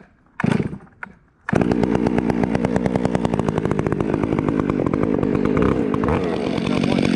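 Gas chainsaw starting: a short burst of engine about half a second in, then it catches about a second and a half in and runs steadily with an even, rapid firing pulse.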